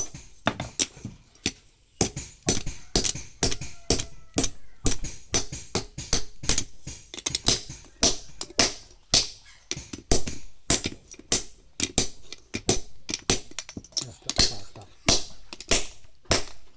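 Hand hammer striking a small axe head on an anvil in a steady run of blows, about three a second, each with a short metallic ring: forging work to tidy up the axe.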